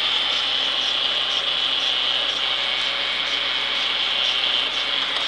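Renault Clio idling in neutral with the clutch pedal held down: a steady high whirr with faint regular ticking. With the pedal down, the irritating noise the car makes in neutral is gone; it comes back once the pedal is released.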